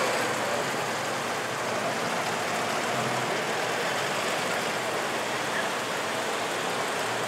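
Classic cars driving slowly past with a faint low engine hum, under a steady hiss of outdoor noise.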